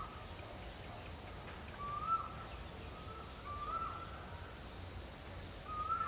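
Steady high-pitched insect drone, with a bird's short call sounding about five times, each note briefly rising and then dropping away.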